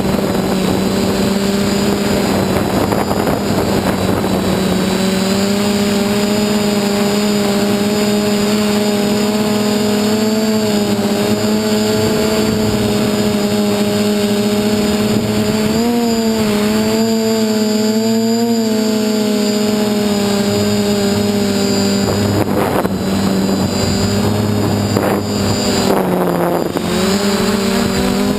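DJI F450 quadcopter's brushless motors and propellers giving a steady, loud buzzing hum. Its pitch wavers with throttle changes, dips briefly near the end, then rises again.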